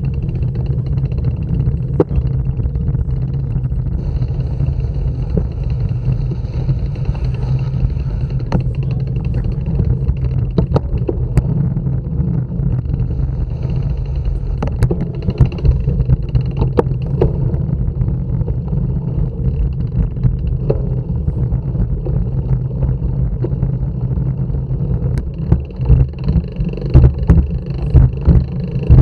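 Steady low rumble of wind and handling noise on a bike-mounted action camera's microphone, with scattered clicks and knocks, growing gustier near the end.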